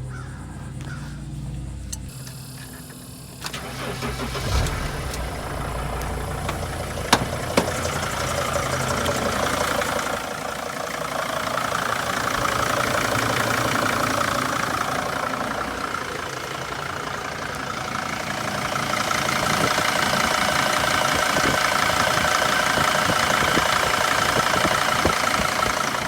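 Mercedes T1N Sprinter engine started about three seconds in and then idling steadily. The harmonic balancer's broken outer ring has been removed and the belt refitted, so it runs without the balancer's clicking and squeaking.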